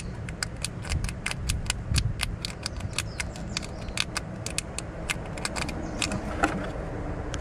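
Rapid metallic clicking of a ratchet wrench backing off a ground-strap bolt, about four clicks a second, over a low steady rumble.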